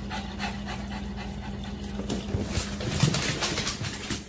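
Small dog panting quickly, about three breaths a second, then a shuffle of movement with light clicks from about two seconds in as it moves off.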